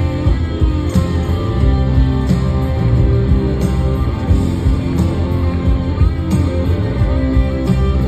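Live rock band playing through a concert PA, with electric guitar to the fore.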